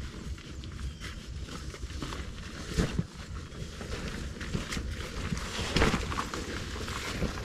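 Footsteps on a muddy, grassy slope, with rustling of carried gear and two louder knocks about three and six seconds in.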